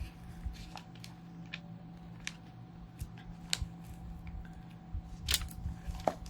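Bible pages being turned by hand: scattered light paper rustles and small clicks, with a louder rustle about five seconds in, over a faint steady hum.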